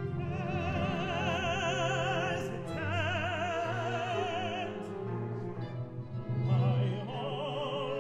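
A male opera singer sings three held phrases with wide vibrato, accompanied by a chamber orchestra.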